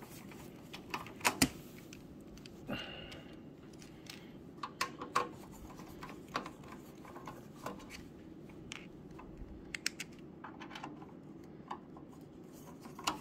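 Hand screwdriver turning out the back-panel screws of a Synology DS1621+ NAS: scattered light clicks and taps of the bit on the screws and case, irregular like typing, over a steady low hum.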